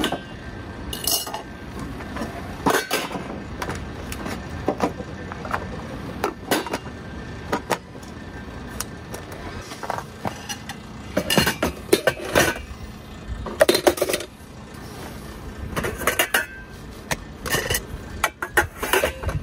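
Metal cookware handled and packed away: a stainless pan and its lid clinking, with scattered knocks and clatter that grow more frequent about halfway through as gear goes into a plastic crate.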